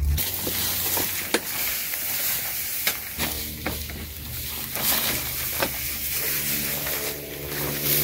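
Backpack sprayer's nozzle hissing as it sprays a fine mist over cacao trees, with a few light clicks. A steady low hum comes in about three seconds in.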